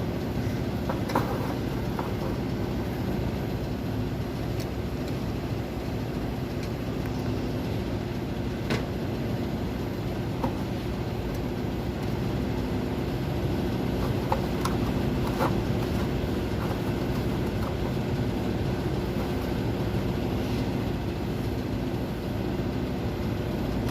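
A steady machine hum holding several low tones, with a few short clicks and taps scattered through it as a replacement fan-motor capacitor is fitted and its wires connected.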